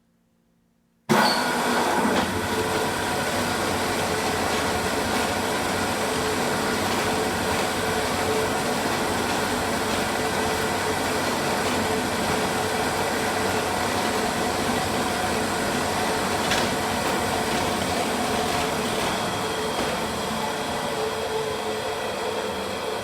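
A ТчПА semi-automatic frame-saw sharpening machine starting up about a second in and running steadily with an even mechanical hum. A single short tap a little past the middle stands out.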